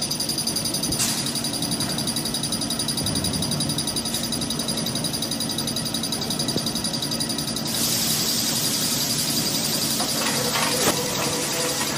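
Toilet paper rewinding machine running: a steady mechanical hum with several high, steady whining tones. About eight seconds in a louder hiss joins, and a single knock comes near the end.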